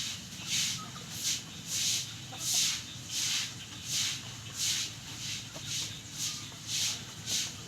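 A sick chicken's noisy, hissing breaths, about one every 0.7 s, steady and regular. This rasping breathing is the respiratory sign of snot (infectious coryza) or 'ngorok', the snoring disease.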